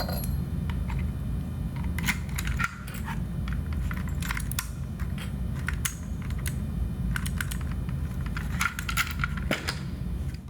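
Keys jangling and a newly installed lock cylinder in a Detex EAX-500 exit alarm clicking as it is worked during a function test: a scatter of short metallic clicks at irregular moments over a steady low hum.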